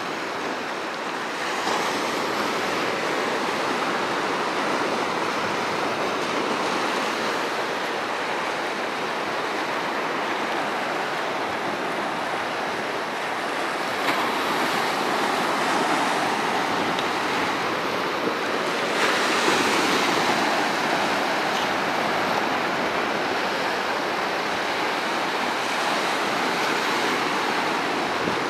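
Sea surf washing and breaking against a rocky shore: a continuous rush of water that swells up several times as bigger waves hit the rocks.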